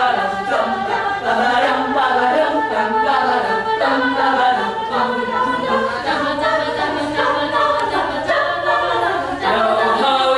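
Women's a cappella group singing in several voice parts at once, with no instruments, the voices moving together in a steady, loud passage.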